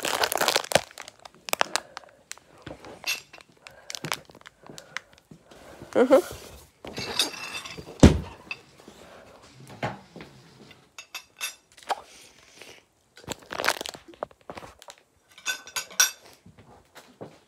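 Plastic drink bottles crinkling, clicking and knocking together while being handled and carried, with one heavy thump about eight seconds in and a short muffled vocal sound just before it.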